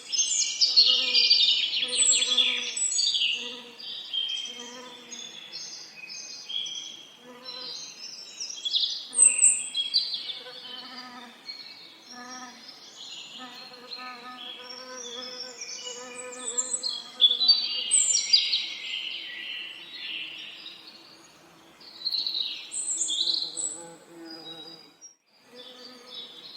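Several songbirds singing and chirping over one another in a busy chorus, loudest near the start and again in the middle. Underneath, a low buzzing of bees swells and fades over and over.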